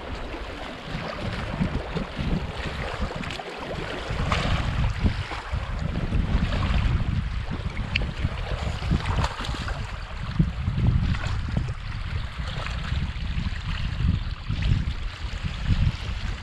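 Wind buffeting the microphone in gusts over small waves lapping at a stony lake shore, with a few brief splashes in the shallows where carp on a rope stringer are being handled.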